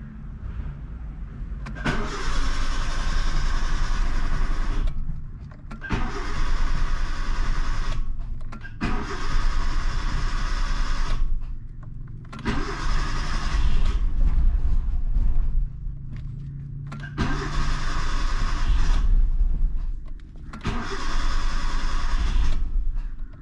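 Starter motor cranking the four-cylinder engine of a Proton Iswara from inside the cabin in about six tries of two to three seconds each, with short pauses between them. The engine does not catch yet on this first start after a top overhaul.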